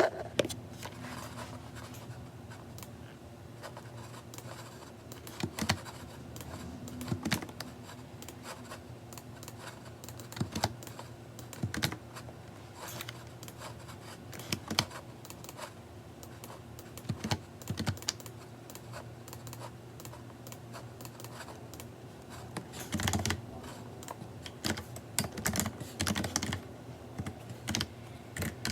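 Computer keyboard typing sped up to double speed: a continuous rapid patter of key clicks, with louder single clacks every few seconds and a dense run of them near the end.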